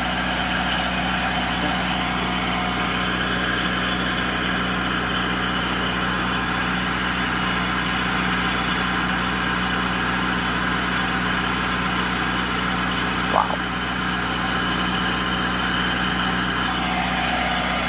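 12 kW Wanchai diesel standby generator with a QC480D engine, running steadily at constant speed with an even hum. It is pretty quiet.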